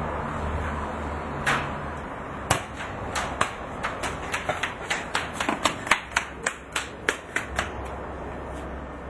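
Footsteps on hard paving: a run of sharp, fairly even steps, about four or five a second at their quickest, that start about a second and a half in and stop a little before the end, over a low steady hum.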